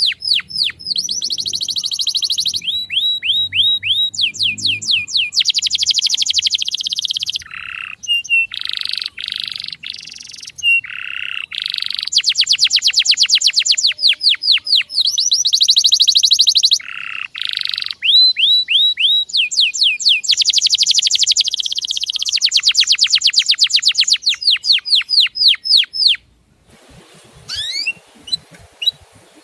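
Male canary singing fast trills of repeated high falling notes, switching to a new trill every second or two, with a few lower rolled phrases in the middle. Near the end the song cuts off suddenly and a fainter recording with scattered rising chirps takes over.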